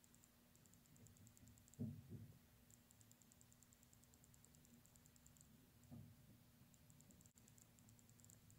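Near silence: faint room tone with runs of fast, soft high-pitched ticking and a faint steady hum. Soft low thumps come about two seconds in and about six seconds in.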